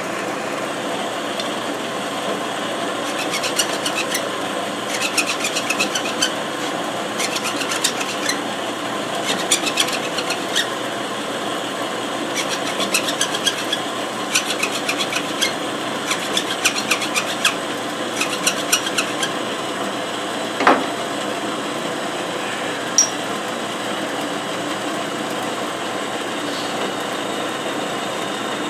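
Hand file rasping on an aluminum clamp piece in short groups of strokes, each about a second long, over a steady machine hum. A single knock comes about two-thirds of the way through.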